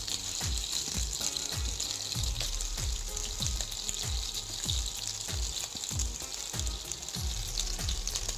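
Chicken pieces sizzling steadily as they fry in hot oil in a pan, under background music with a steady beat of about two drum thumps a second.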